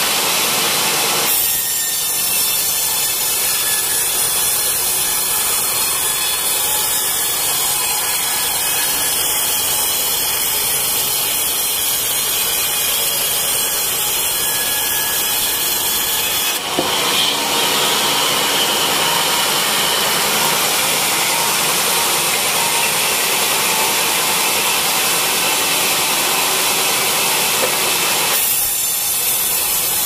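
Band sawmill blade cutting lengthwise through a teak log, a steady loud hissing saw noise over the running machine. The sound changes abruptly about a second in and again about halfway through.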